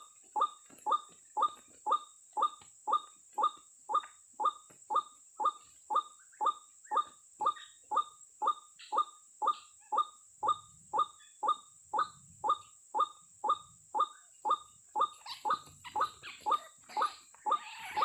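White-breasted waterhen (ruak-ruak) calling, one short 'ruak' note repeated steadily about twice a second over a steady high hiss. Near the end, rustling and low thuds join in.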